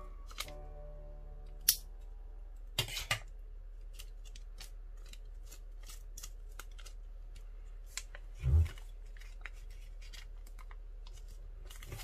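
Scissors cutting stiff colored paper in many short snips, with paper rustling. A loud dull thump a little past halfway.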